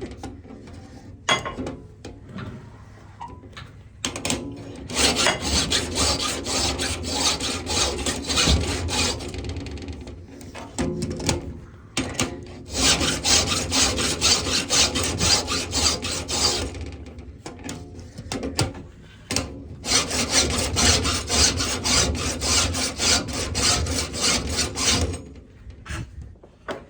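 Hand file rasping across saw teeth to sharpen them, in long runs of quick strokes with short pauses between runs.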